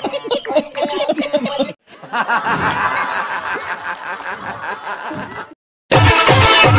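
People snickering and chuckling, broken by two short cuts; loud music comes in near the end.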